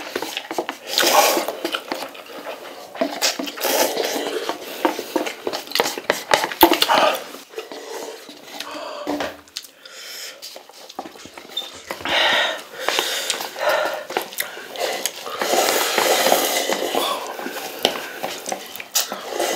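Two people eating spicy instant noodles from paper cups: irregular slurping and chewing, with chopsticks clicking against the cups.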